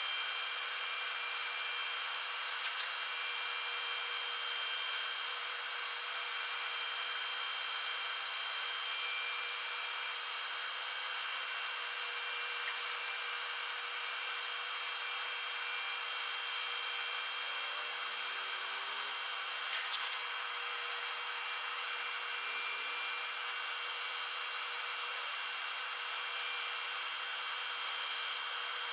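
Steady hiss of shop background noise with a few faint steady high tones, sped up along with the footage, and two short clicks about 3 seconds and 20 seconds in.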